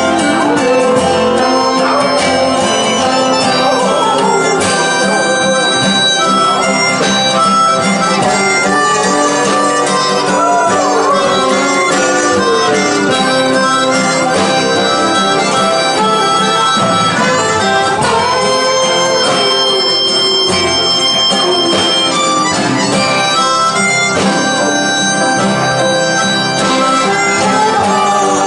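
Live blues band playing an instrumental passage, a harmonica leading with bending, sliding notes over acoustic guitar and upright bass.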